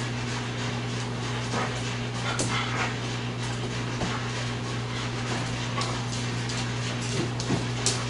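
Young black Labrador retriever's soft dog sounds as she works, over a steady low hum, with a few faint clicks and knocks scattered through.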